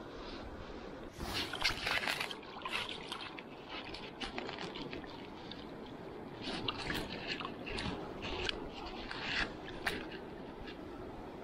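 River riffle running steadily, with irregular bursts of splashing and jacket fabric rustling as a netted trout is handled in the water.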